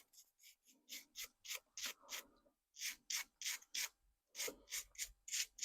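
Faint, quick rubbing strokes, about three a second, as the remote key's circuit board is scrubbed clean of soldering flux.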